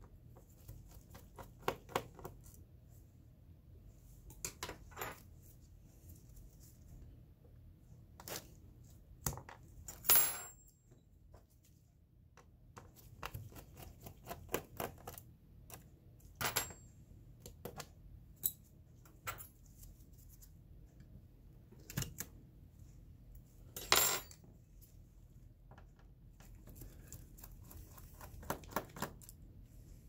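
Small screws being backed out of a laptop's bottom cover with a screwdriver: scattered light clicks and ticks, and twice a louder ringing metal clink of a screw dropped into a steel bowl.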